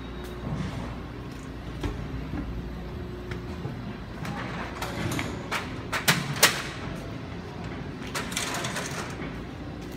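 E1000 push-pull Tze-Chiang express standing at a station platform with a steady low hum. About six seconds in comes a run of sharp knocks and clatter, the loudest part, and about eight seconds in a brief hiss.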